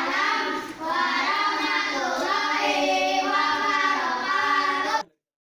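A group of children singing together, cutting off abruptly about five seconds in.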